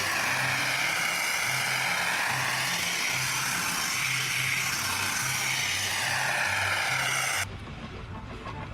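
Loud, steady rushing hiss with bands that sweep slowly up and down in pitch, over a faint low repeating pattern; it cuts off abruptly about seven and a half seconds in.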